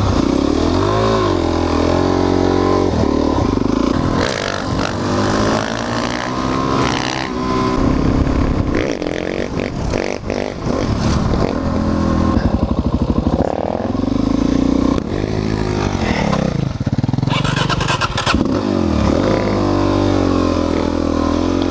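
Suzuki DR-Z400SM's carburetted single-cylinder four-stroke engine under way, its pitch rising and falling as the throttle is worked and gears change. Stretches of rattling clatter come in around the middle and again near the end.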